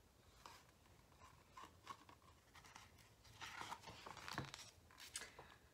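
Faint paper rustling and light handling clicks as a picture book's page is turned, mostly in the second half.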